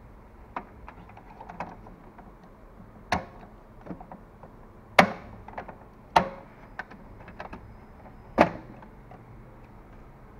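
A series of sharp plastic clicks and knocks as an HP 63 ink cartridge is fitted into the carriage of an HP DeskJet 2130 printer, the loudest about three, five, six and eight seconds in.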